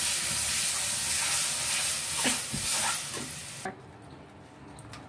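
Ground tomato-and-chilli chutney sizzling loudly as it is poured into hot oil with fried garlic and ginger in a kadhai, with a few short knocks partway through. The sizzling cuts off abruptly about three and a half seconds in, leaving only faint sound.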